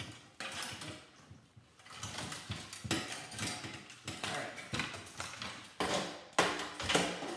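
Metal parts of a dehumidifier clanking, knocking and scraping as they are wrenched apart by hand, in irregular knocks with the loudest about six seconds in.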